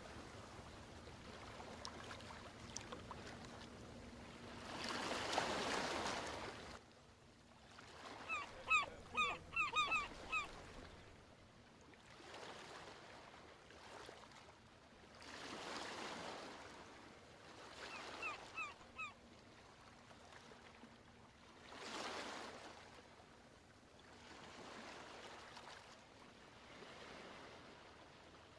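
Ocean waves breaking and washing in slow surges every few seconds. A bird gives a quick series of short calls about eight to ten seconds in, and a few more near nineteen seconds.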